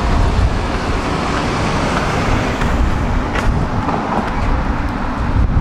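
Prague tram and street noise, a steady low rumble with a faint falling whine dying away just after the start and one sharp click about three and a half seconds in.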